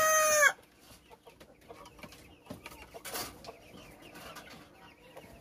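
A rooster's crow, its long held final note cutting off about half a second in, followed by faint clucking of hens and small clicks and knocks as a hand works inside a wire chicken cage.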